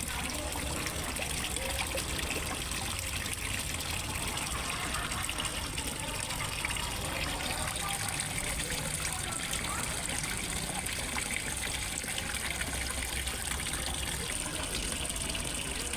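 Water falling steadily into a fish pond, a constant trickling and splashing like a small pond waterfall.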